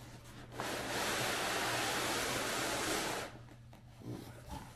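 Cardboard sliding against cardboard as a large shipping box is worked open: a steady, smooth hiss lasting a little under three seconds, then a few faint knocks.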